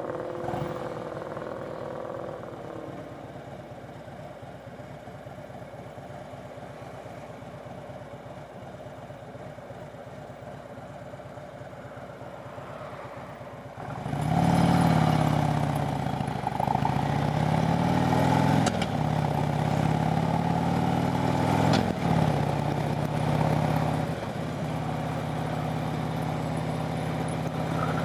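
Harley-Davidson motorcycle V-twin engine running while being ridden: quiet and steady at first, then about halfway through it gets suddenly louder, its pitch rising and falling as it revs, before settling to a steadier drone near the end.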